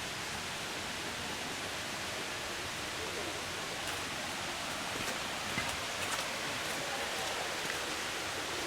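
Steady, even rush of falling mountain water.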